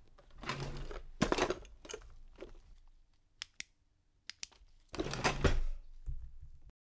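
A wooden kitchen drawer sliding open and a hand rummaging through the knives and utensils inside: several scraping, rattling stretches with a few sharp clicks between them, cutting off suddenly near the end.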